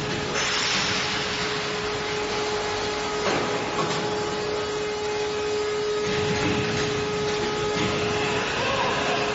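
Steady foundry melt-shop noise during a molten-metal pour from a crane-hung ladle: a loud, even rush with a constant steady tone running through it.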